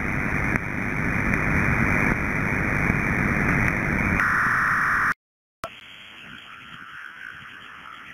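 Shortwave receiver audio of digital-mode data signals sent together on one frequency: a ROS signal, a dense hiss filling the band up to about 2.5 kHz, joined about four seconds in by a narrower FreeDV 700D signal in the middle of the band. The audio drops out briefly around five seconds, after which the narrower signal goes on much more quietly.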